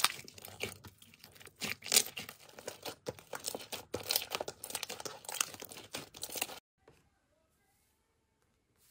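Hands squishing and pressing pink slime, with a dense run of crackling, popping clicks and sticky tearing. It cuts off suddenly about six and a half seconds in, leaving near silence.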